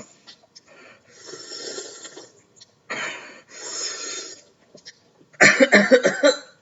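Noisy sucking and breathing through a drinking straw with a mouthguard in the mouth, in several drawn-out pulls, then a short, loud, muffled vocal sound near the end.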